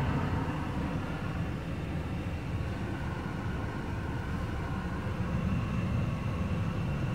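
Truck engine running steadily at low speed, heard from inside the cab as an even low rumble with a faint high hum above it.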